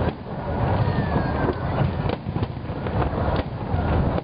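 Fireworks display: a continuous low rumble of bursting shells with scattered sharp cracks. A brief falling whistle comes about a second in.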